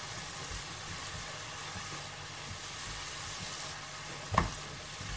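Chopped garlic and spring onion with soy sauce sizzling in hot oil in a nonstick pan while a spatula stirs them, with one sharp knock of the spatula against the pan about four seconds in.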